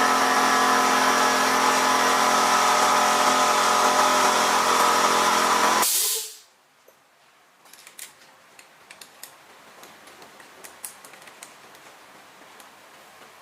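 An electric power tool's motor running at a steady speed, then cutting off about six seconds in, followed by faint light clicks and taps.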